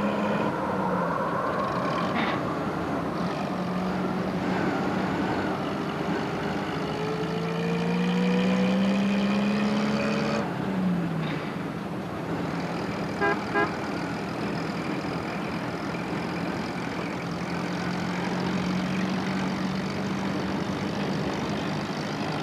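Cartoon soundtrack of a small van's engine running through gusty howling wind, with a tone that rises slowly and cuts off suddenly about ten seconds in. Two short toots come about 13 seconds in.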